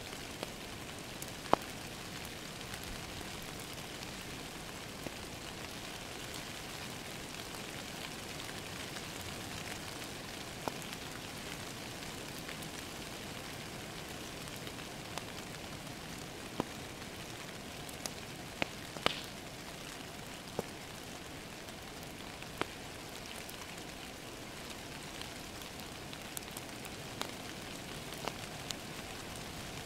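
Steady rain against a window, with a wood fire crackling: sharp pops come at irregular intervals over the even patter, the loudest a little over a second in and another about two-thirds of the way through.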